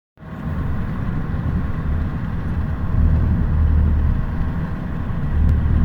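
Low, steady rumble of a car.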